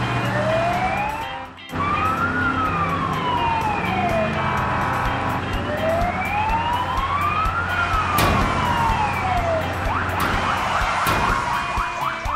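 Police car siren wailing, rising and falling slowly about every four and a half seconds, over a steady low engine drone. It drops out briefly about a second and a half in, and a run of quicker rising sweeps comes near the end.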